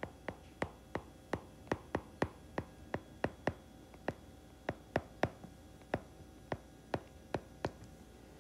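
Stylus tapping on a tablet screen during handwriting: a run of short, sharp taps, about three a second, unevenly spaced.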